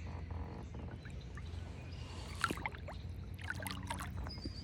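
Water splashing and trickling in short bursts, over a low wind rumble on the microphone.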